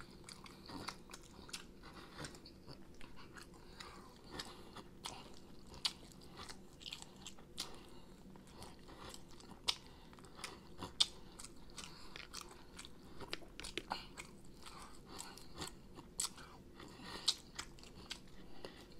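A person biting and chewing chicken wings, with irregular sharp crunches as the meat is gnawed off the bone.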